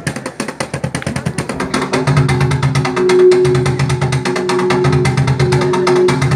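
Group of cajóns (wooden box drums) played together in fast, even strokes. About two seconds in, music with low sustained notes and a pulsing bass joins the drumming.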